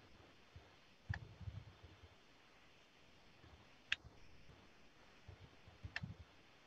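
Three faint, sharp mouse clicks, about one, four and six seconds in, over near-silent room tone, with a few soft low knocks.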